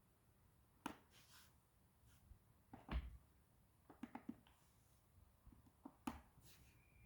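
Faint scattered clicks and knocks in four small clusters, the loudest about three seconds in, as a Lefant P1 robot vacuum is handled and its buttons are pressed without it responding. A faint, steady high tone begins near the end.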